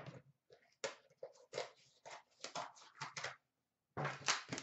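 Card-box packaging being handled and opened: a series of short, irregular crinkles and rustles.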